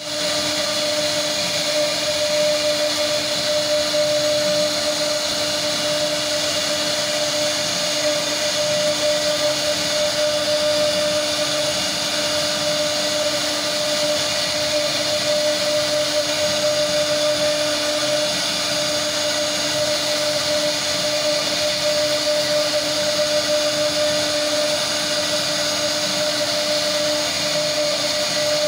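CNC router spindle running while its bit carves a relief into a wooden board: a steady, unchanging machine whine over the hiss of cutting.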